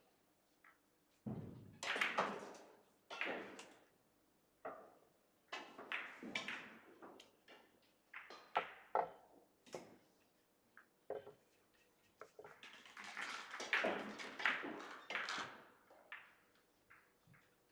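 Irregular clicks and knocks of Russian billiard balls and cues from neighbouring tables, each with a short ring and some room echo, crowding together about three-quarters of the way through.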